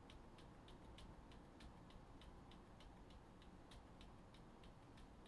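Faint, regular ticking of a computer mouse's scroll wheel being rolled slowly, several clicks a second, over near silence.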